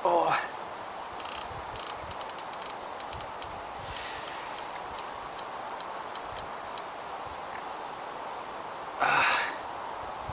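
Fixed-spool fishing reel ticking in quick runs while a hooked tench is played on the rod. A brief falling-pitched sound comes at the very start and a short louder rushing sound about nine seconds in.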